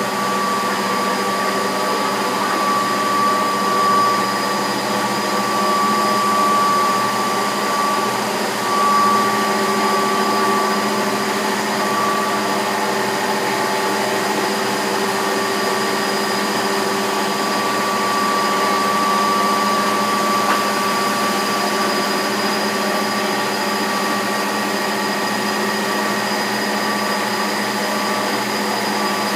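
Plastic film granulating (pelletizing) line running: electric motors and machinery giving a steady drone with a constant high whine.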